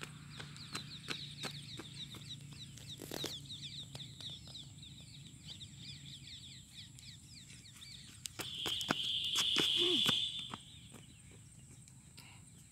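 Birds chirping rapidly in quick high notes, with scattered light thuds of running footsteps. About two-thirds of the way through, a loud high hissing buzz lasts about two seconds and then stops.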